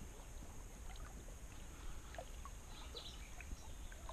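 Faint water sounds against a kayak's hull as it sits on a slow river: scattered small ticks and trickles over a low steady rumble.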